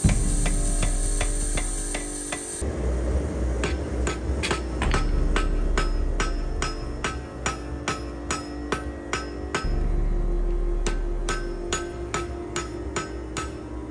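Power hammer pounding glowing axe steel for the first couple of seconds, then hand-hammer blows on the hot steel on an anvil in a steady beat of about two to three strikes a second, with a short metallic ring on many blows.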